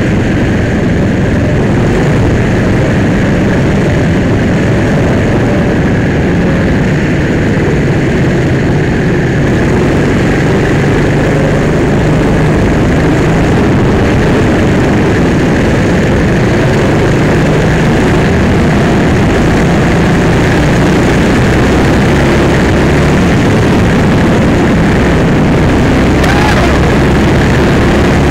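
Go-kart engine running hard and loud, heard close up from the kart itself, its note holding steady through the lap with small rises and falls as the kart corners.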